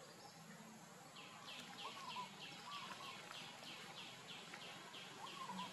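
Faint outdoor ambience with a bird calling a rapid series of short, falling notes, about three a second, starting about a second in. A few brief warbled notes sound lower down.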